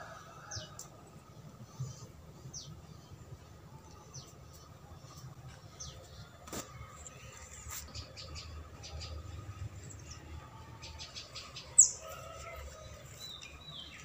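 Small birds chirping: short, high, falling chirps every second or two, with one much louder sharp chirp near the end, over a faint low background rumble.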